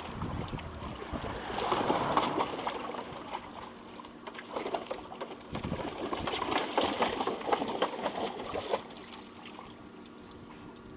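A dog splashing in a plastic tub of water, churning and sloshing it with its legs in two bouts; the splashing stops about nine seconds in.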